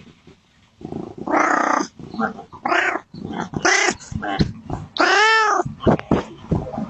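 Domestic cat meowing over and over for food: a run of short calls, then a longer rising-and-falling meow about five seconds in.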